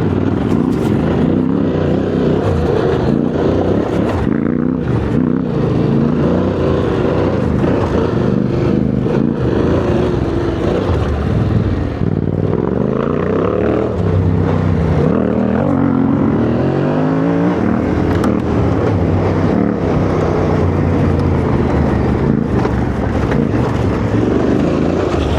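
Yamaha Ténéré 700's parallel-twin engine running as the motorcycle is ridden off-road, its pitch rising and falling over and over with the throttle, with scattered knocks and clatter.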